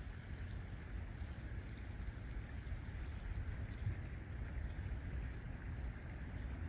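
Steady outdoor background noise: a low rumble with a fainter hiss over it, and no distinct bird call.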